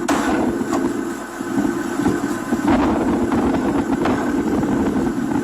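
A large engine running steadily, with a few sharp knocks over it.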